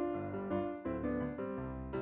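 Background music: a light piano or electric-piano tune, notes struck every quarter to half second.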